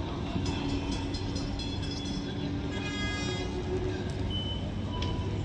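Busy city-square traffic noise with a steady low rumble, and a brief high-pitched toot about three seconds in.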